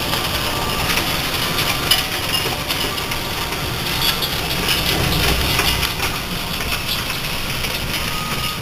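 Hail pelting down in a dense, steady clatter of many small, hard impacts.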